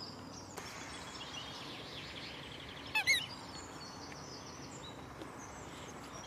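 Wild birds singing and chirping in the background, with one louder, short two-note call about halfway through.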